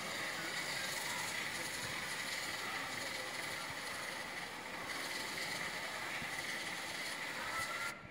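Glosil aerosol chain cleaner spraying onto a motorcycle drive chain in one long continuous hiss, cut off sharply near the end.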